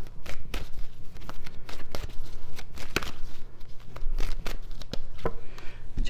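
Tarot cards being shuffled by hand: a run of irregular sharp card clicks and slaps.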